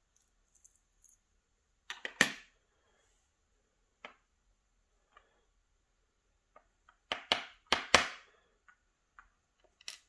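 Small metal parts of an Assa 600 lock cylinder clicking and knocking as it is taken apart by hand: a couple of sharp clicks about two seconds in, one near four seconds, scattered faint ticks, then a quick run of four clicks about seven to eight seconds in.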